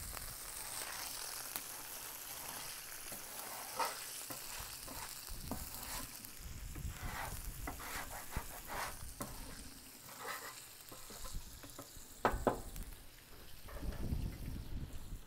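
Bacon and burger patties sizzling steadily on a flat-top steel griddle, with a metal scraper scraping across the griddle surface and a few short metallic clinks, the sharpest about twelve seconds in.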